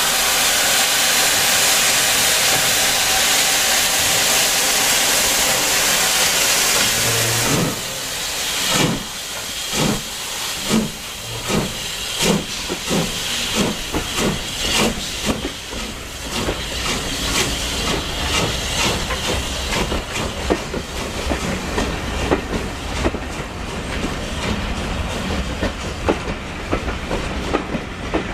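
Drummond M7 0-4-4 tank steam locomotive: a steady, loud hiss of escaping steam, then, about a quarter of the way in, slow exhaust chuffs that gradually quicken as it starts its train away.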